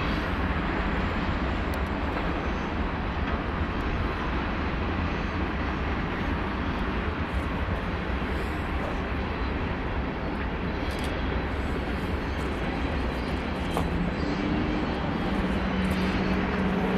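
Union Pacific freight train rolling by, a loud, steady rumble and roar of wheels on rail. A steady low hum comes in over the last few seconds.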